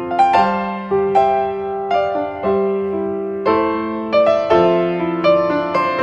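Background music: a gentle piano melody, its notes struck about once or twice a second and left to ring.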